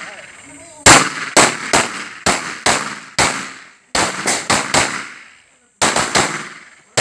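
Pistol shots fired in three quick strings, about six, then four, then three, each sharp crack trailing off in echo.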